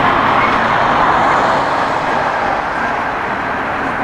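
Twin GE90 turbofan engines of a Boeing 777 freighter running at low taxi power: a steady jet noise, strongest in the midrange, easing slightly after the first second or so.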